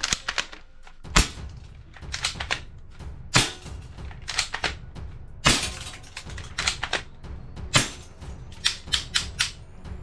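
Toy BB gun being fired, four louder sharp shots about two seconds apart with quick clusters of lighter clicks between them.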